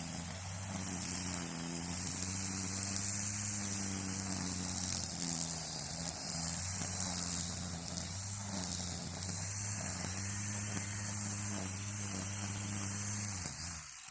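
String trimmer (weed eater) running steadily at speed, with a high hiss over the motor's tone. It cuts off near the end and winds down.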